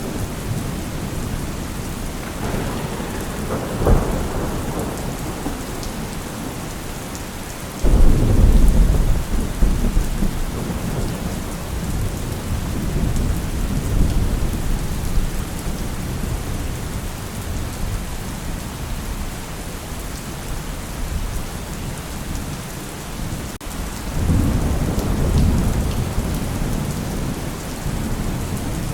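Steady rain falling, with rolling thunder: a rumble with a sharp crack a few seconds in, a sudden heavy low rumble about eight seconds in that slowly fades, and another rumble near the end.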